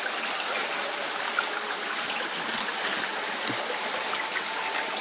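Shallow rocky stream flowing and trickling steadily over stones, with a few faint ticks.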